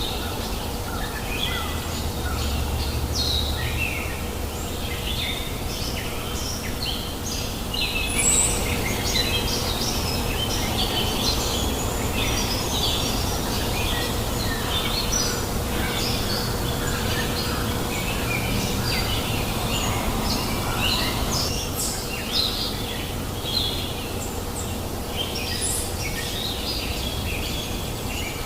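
Many small birds chirping and calling in quick, overlapping bursts over the steady rushing babble of a flowing river.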